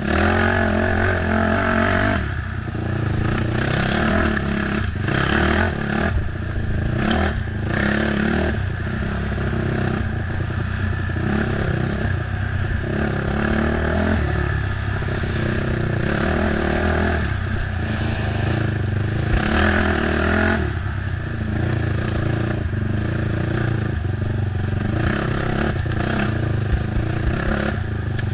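Race ATV's engine running hard, its pitch rising and falling again and again with the throttle. Frequent clattering knocks run through it.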